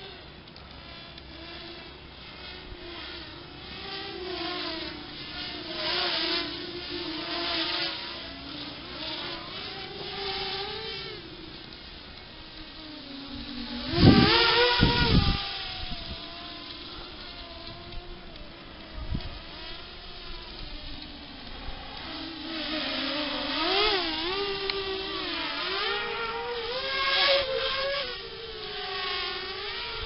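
RG210 FPV racing quadcopter's motors and propellers whining in flight, the pitch rising and falling with the throttle as it flips and dives. It makes one loud close pass about halfway through.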